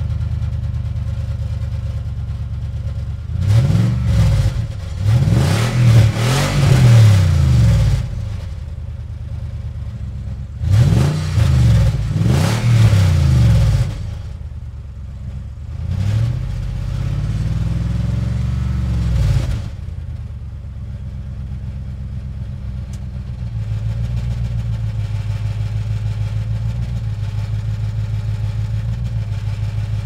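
2005 Infiniti QX56's 5.6-litre V8 idling with a leaky exhaust, revved in two bursts of quick throttle blips and then once more slowly and longer, dropping back to idle after each. Near the end the idle settles into a steadier, slightly louder note.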